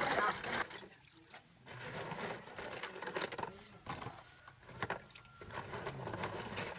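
Irregular sharp clicks and light metal clinks, as of hand tools and gearbox parts being handled, spaced out with short quiet gaps.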